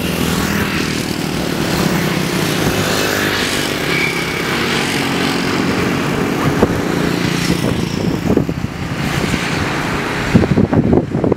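A motor vehicle's engine running at a steady speed while on the move, a low steady hum. About ten seconds in, wind starts buffeting the microphone.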